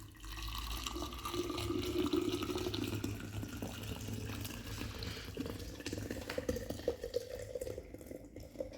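Hot drink poured from the pan through a sieve, splashing steadily into a vessel, the tone of the pour rising as the vessel fills.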